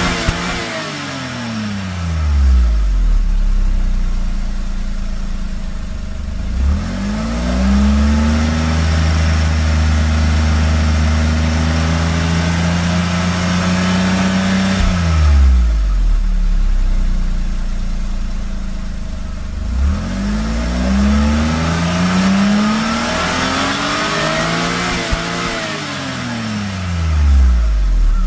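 Exhaust of a Suzuki MH34S Wagon R Stingray Turbo's 660 cc turbocharged three-cylinder engine through its stock muffler, heard at the tailpipe. It is revved up and falls back to idle several times, with one rev held high for several seconds.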